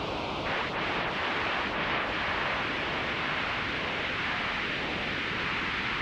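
Synthesized white noise from the noise oscillator of Ableton's Analog synth, passed through a notch filter, giving a steady wind-like hiss. A slowly drifting notch carves a moving hollow in the middle of the noise. A faint high steady tone in the mix stops about half a second in.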